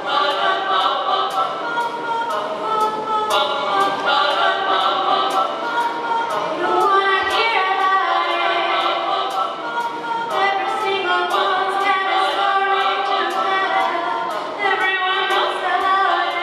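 A cappella singing built up on a loop station: one voice layered into several repeating vocal parts that sound like a small choir, over a steady ticking beat of about three ticks a second.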